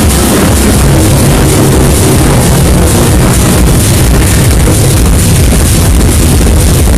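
Loud electronic dance music played over a festival sound system, with heavy bass.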